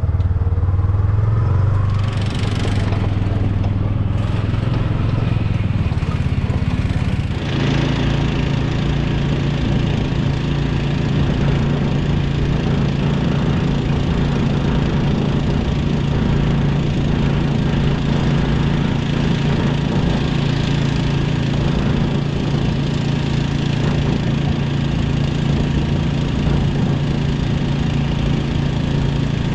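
An engine of the hay-making machinery running steadily. About seven seconds in it speeds up and holds a higher, even pitch.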